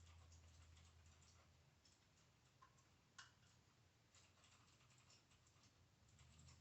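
Near silence: quiet room tone with faint scattered ticks and clicks and a low hum, one sharper click about three seconds in.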